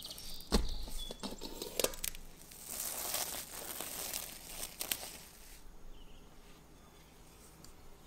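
Clear plastic cling film crinkling as it is pulled off a glass bowl of dough, for about three seconds in the middle, with a sharp knock about half a second in.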